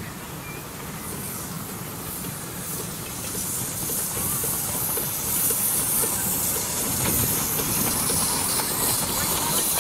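Miniature live-steam locomotive, a replica Bulleid Merchant Navy Pacific, hissing steam as it hauls its passenger train towards and past the listener. It grows louder from about three seconds in, with light clicking of wheels on the track.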